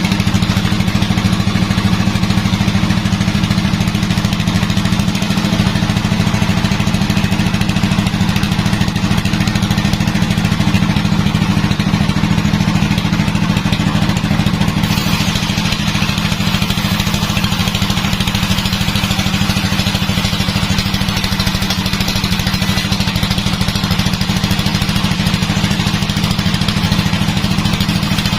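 Sawmill's engine running steadily; about halfway through a higher hiss comes in suddenly and holds.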